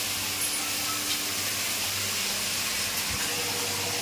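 Water running from a kitchen water-purifier tap into a plastic bowl: a steady hiss.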